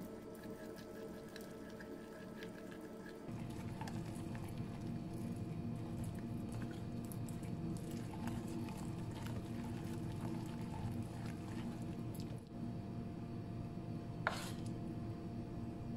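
Thick gram-flour batter being beaten with a spoon in a bowl: continuous wet squishing and slapping, over a steady low hum.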